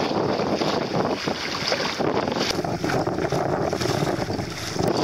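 Wind buffeting the microphone over water washing and splashing against the hull of a boat under way.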